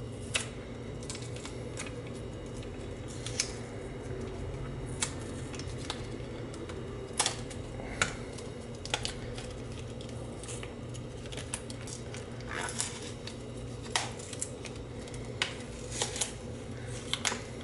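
Wet, boiled label being peeled by hand off a Fujifilm disposable camera's plastic body: scattered sharp clicks and crackles of the sticker tearing away and fingers working the plastic, over a steady low hum.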